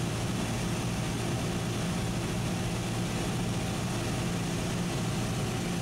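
Cessna 172SP's four-cylinder Lycoming engine and propeller giving a steady drone inside the cabin, at reduced power with the first notch of flaps in for the pattern descent.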